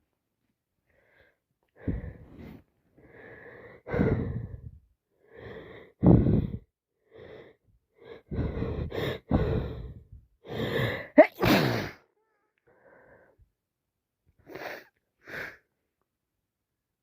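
A woman with a heavy cold taking a string of wheezy, catching breaths that build up to a sneeze about eleven seconds in, followed by two short sniffs near the end.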